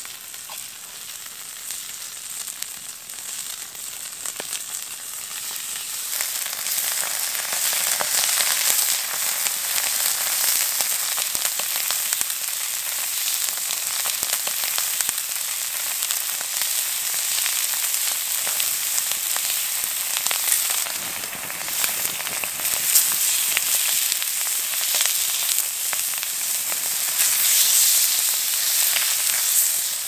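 Beef steaks searing in a hot cast-iron pan over a wood fire: a steady sizzle full of small pops of spitting fat, building over the first several seconds as the meat goes in and easing briefly about two-thirds through before carrying on.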